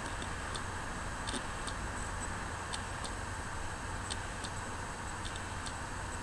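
Faint, irregularly spaced high clicks, about ten in all, over a steady low hum and hiss.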